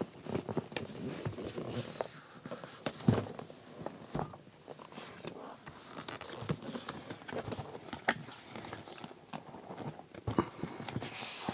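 Cardboard box and packaging being handled and opened by hand: irregular taps, knocks and rustling. A steady hiss of something sliding starts near the end.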